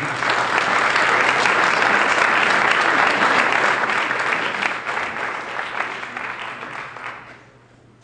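Audience applauding. The clapping is loud for about four seconds, then tapers off and dies away about seven seconds in.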